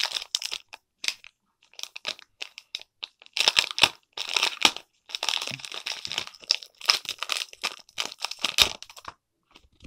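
Foil Pokémon booster pack wrapper being crinkled and torn open by hand, in irregular bursts of crackling with short pauses.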